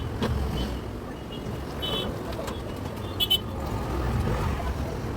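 A low, steady engine rumble, growing a little louder near the end, with several short, high bird chirps over it.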